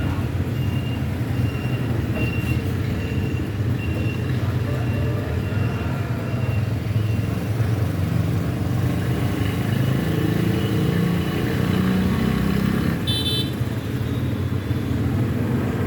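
Street traffic: a steady low engine rumble from passing vehicles, with a short high horn toot about 13 seconds in.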